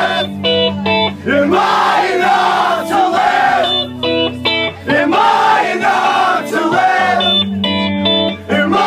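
Emo rock band playing live, with electric guitars, bass and drums. A bright picked guitar figure comes back about every four seconds, with shouted group vocals between.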